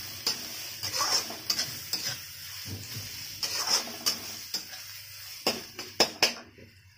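A spatula scraping and knocking against a metal kadhai while chopped onions fry and sizzle in oil, being stirred to brown. The stirring and sizzle cut off abruptly near the end.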